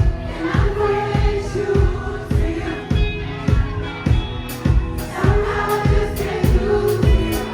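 Gospel music with a choir singing over a band, a steady kick-drum beat about every half second and bass underneath.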